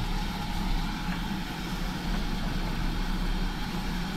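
Steady low rumble and hiss of a steam train standing at the platform.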